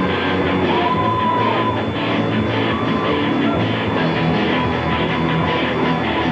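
Rock band playing live: electric guitar, bass and drums at a steady driving beat.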